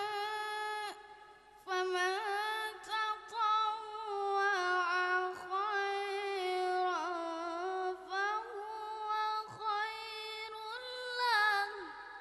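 A boy reciting the Quran in Arabic in the melodic tilawah style over a microphone and PA. He sings long held notes in a high voice with ornamented turns, with a brief breath pause about a second in. The phrase ends near the close on a falling note.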